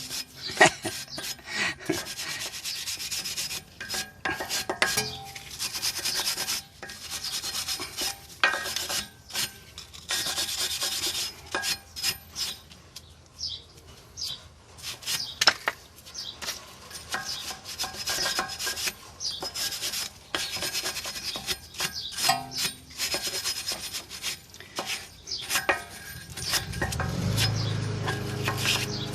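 Scrubbing and rasping on metal brake parts, in many short, uneven strokes, as rust and grime are cleaned off. A low hum comes in near the end.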